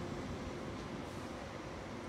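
Steady railway-station background noise: a low rumble and hiss with a faint steady hum, with no train passing.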